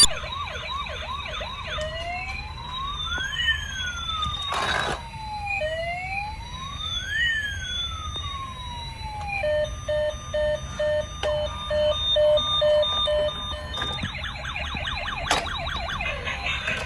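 A toy ambulance's electronic siren cycling through its tones. It starts with a fast yelp, then a slow rising-and-falling wail, then a pulsed beeping tone, and a fast yelp again near the end. Two sharp clicks come in between.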